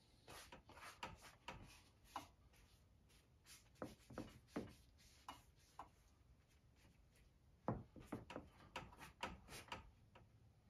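Gloved hand smearing acrylic paint across a stretched canvas: a scattered run of faint rubbing strokes and light taps against the canvas, with a louder cluster near the end.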